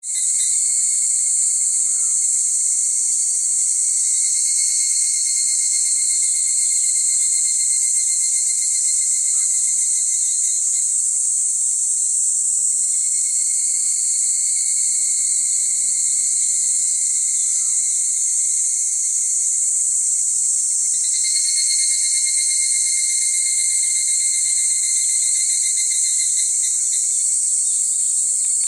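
Cicada chorus: many higurashi (evening cicadas) with a few Kaempfer cicadas (niiniizemi) among them, a continuous shrill ringing. It swells slightly about two-thirds of the way through.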